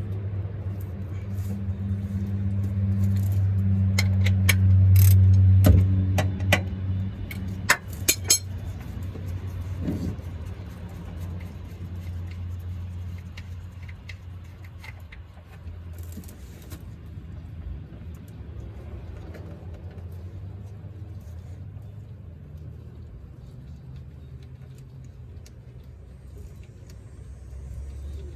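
A motor vehicle's low engine hum swells to its loudest about five seconds in and then slowly fades away, as a vehicle going past does. Around the loudest part come several sharp metallic clinks, like hand tools knocking together.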